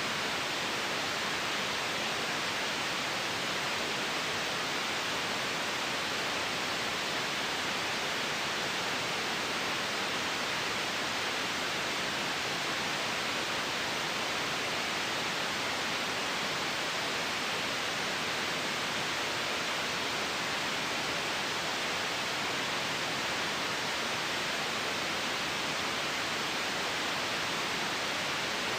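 Steady synthetic white noise, an even hiss that does not change.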